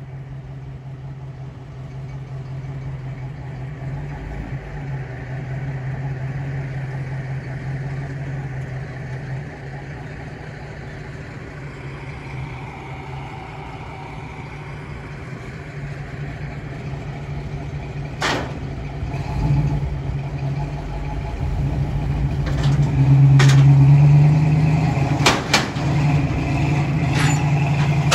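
Vehicle engines running steadily as a classic Ford Mustang coupe is driven up a car carrier truck's loading ramps. The engine noise grows louder in the second half, and several sharp knocks come in the last ten seconds.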